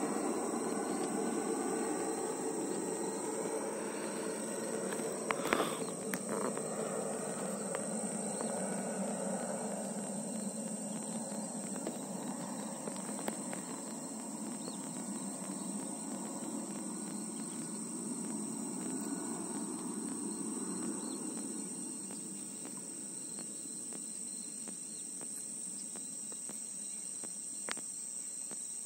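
Insects trilling steadily in a thin, high tone, over the low rumble of a jet airliner passing overhead, which fades away over the first twenty seconds or so. A couple of faint knocks about five seconds in and near the end.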